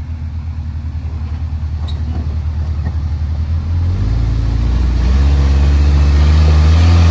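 Off-road 4x4's engine running at low revs with a pulsing note, then revving higher and louder about four seconds in as the rig is driven up over a rock.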